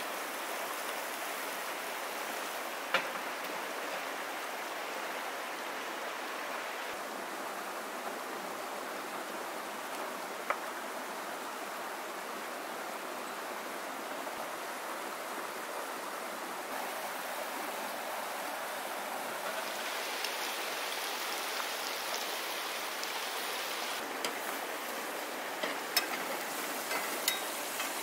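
A fast-flowing river rushing over rocks, a steady even hiss, with a few short clicks and taps, most of them in the last few seconds.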